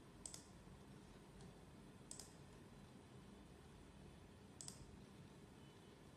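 Computer mouse clicking three times, about two seconds apart, each click a quick pair of ticks, over near-silent room tone.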